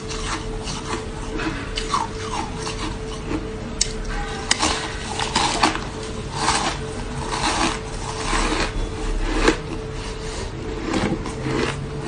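Frosted coloured ice being bitten and chewed: a rapid, irregular run of crisp crunches, over a faint steady hum.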